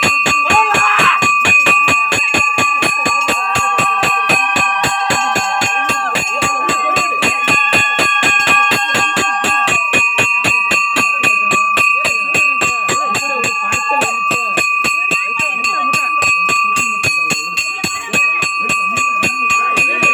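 Festival music: a fast, even beat of about three or four strokes a second over a bell that rings without a break, with a wavering melody line held over the beat for several seconds at a time.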